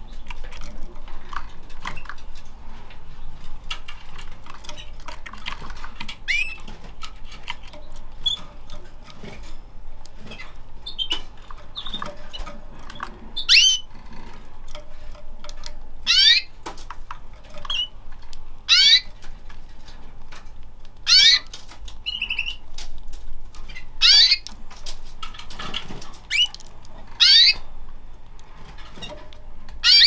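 Caged canaries calling and fluttering: short, sharp downward-sweeping calls repeated every two to three seconds, over light ticks and wing flutters as they hop about the perch and food cup.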